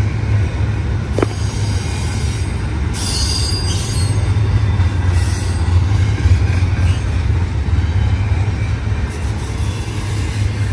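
Freight train rolling past: a steady, loud rumble of wheels on rail, with a brief high wheel squeal about three seconds in.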